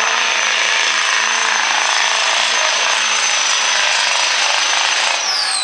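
Turbocharged diesel Chevrolet Silverado pickup pulling a sled at full throttle: dense engine and exhaust noise over a steady high turbo whistle. Near the end the whistle falls in pitch as the throttle is let off and the turbo spools down.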